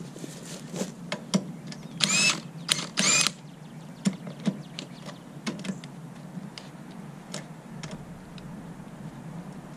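Cordless impact wrench running lug nuts off a truck wheel: two short bursts of motor whine rising in pitch, about two and three seconds in, with scattered sharp metallic clicks around them.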